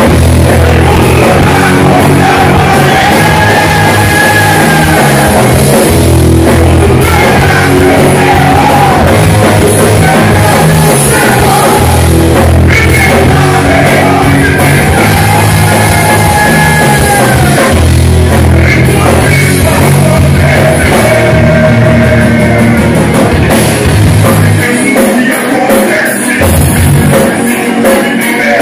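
Live rock band playing loudly: electric guitars, bass and drums under a male lead singer's held, sung lines. Near the end the bass and drums drop back for a few seconds.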